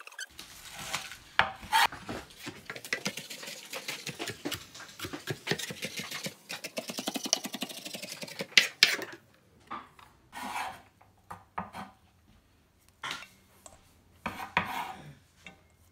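Chef's knife rapidly chopping and mincing garlic cloves on a bamboo cutting board: a fast, dense run of knocks for about nine seconds. Then come four or five separate scraping strokes as the minced garlic is gathered and scraped off.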